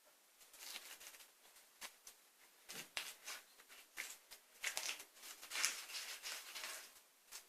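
Homemade slime being squished and worked by hand: an irregular run of soft crackles and clicks that gets busier and louder in the second half.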